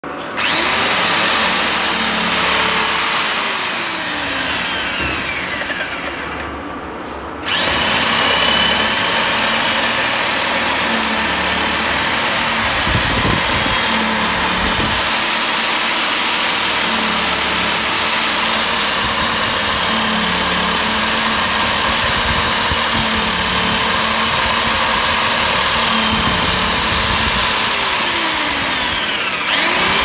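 Electric drill spinning the worm shaft of a home-made worm gear and worm wheel set, the motor whining steadily over the meshing gears. The whine drops in pitch around four seconds in and the sound goes quieter and duller until it picks back up about seven and a half seconds in; the pitch dips again near the end.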